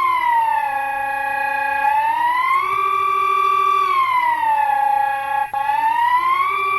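Recording of the Swedish emergency warning siren, a high-pitched wail that slides up and down between two pitches, holding each briefly, one full cycle about every four seconds. There is a brief dropout about five and a half seconds in.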